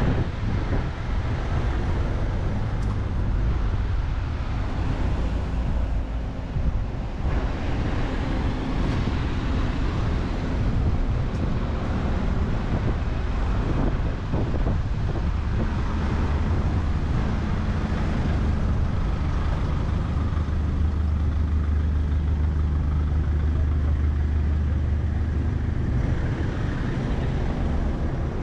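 City street traffic: motor vehicles passing, with a steady low drone for about ten seconds in the second half.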